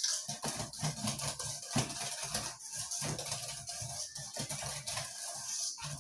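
Wire whisk beating eggs into thick chocolate brownie batter in a stainless steel bowl, the whisk clicking and scraping against the metal about twice a second. Music plays softly underneath.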